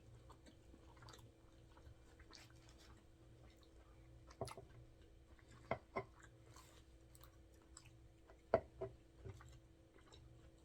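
A person chewing food with soft mouth sounds and a few short, sharp smacks, the loudest a little past halfway.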